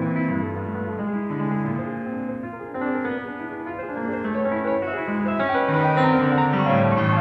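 Background music: piano playing slow, sustained chords, growing fuller and louder near the end.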